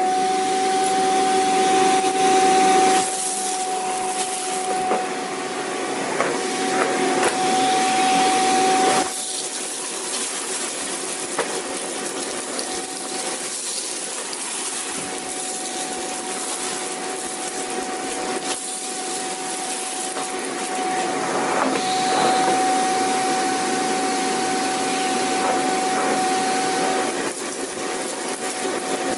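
Vacuum cleaner running steadily, its motor giving a constant whine over a broad rushing noise. The sound shifts in loudness and tone every few seconds: it drops about nine seconds in and swells again a little past twenty seconds.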